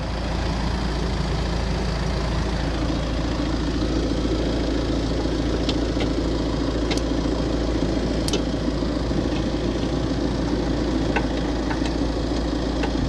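Off-road 4x4's engine running steadily at idle close to the microphone, with a few faint sharp ticks.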